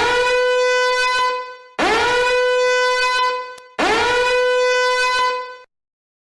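Three identical loud horn blasts, each lasting just under two seconds; every blast scoops up quickly in pitch and then holds one steady, buzzy note, with short gaps between them.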